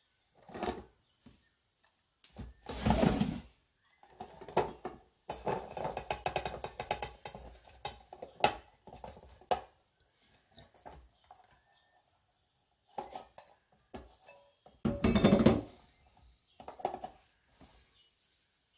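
A stainless steel bowl and a steel meal box handled and knocked together, with clattering and knocks as dumplings, green onions and rice cake slices are tipped from the bowl into the box. Two louder thumps come about three seconds in and again near the end, with a longer stretch of clatter in the middle that ends in a sharp click.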